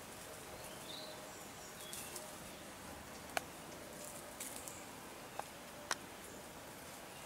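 A Ratonero Bodeguero Andaluz terrier nosing through dry leaves and twigs: faint rustling with a few sharp crackles and twig snaps, the loudest a little before halfway. Under it runs a steady faint outdoor hiss, with a faint high chirp about a second in.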